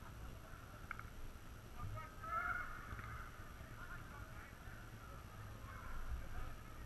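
Distant shouts and calls from footballers across the pitch, faint and wavering, loudest about two seconds in.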